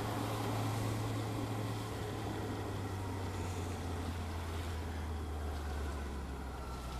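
Suzuki Bandit motorcycle's inline-four engine running, with wind and road noise on the helmet microphone. Its steady low engine note drops in pitch about two seconds in as the bike eases off approaching queued traffic.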